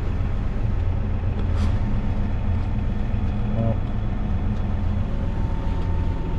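Tractor engine pulling a grain cart, running steadily as a low drone with a faint steady whine above it.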